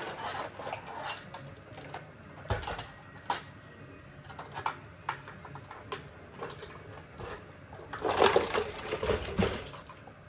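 Plastic toy tow truck and small toy car being handled: scattered light clicks and knocks of plastic parts, then a louder rustling, knocking stretch near the end as the toy car is moved about on the rug.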